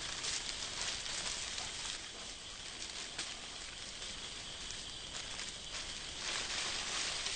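Outdoor ambience on a forest floor: a steady hiss with light crackling and rustling of dry leaf litter.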